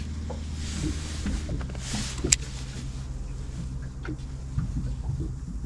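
Electric trolling motor humming steadily as it holds and steers the boat, with light knocks on the aluminium boat and one sharp click a little over two seconds in.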